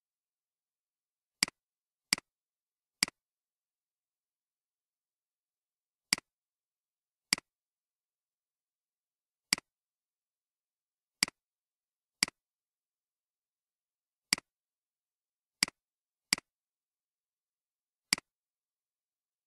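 Computer mouse clicking, twelve short sharp clicks at uneven intervals of about one to two seconds, with silence between them.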